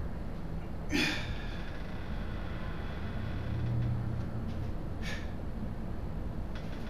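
A man blowing out two sharp breaths while flexing through bodybuilding poses, one about a second in and another about four seconds later, over a steady low room hum.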